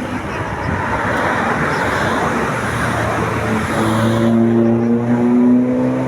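Road vehicle passing with loud road noise. About halfway through, its engine note comes up and climbs slowly in pitch, as when a vehicle accelerates.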